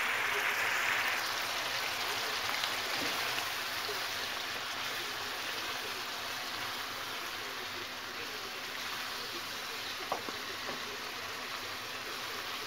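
Minced-meat and mushroom sauté sizzling and bubbling in its juices in a frying pan as a wooden spoon stirs it, with a single light tap about ten seconds in.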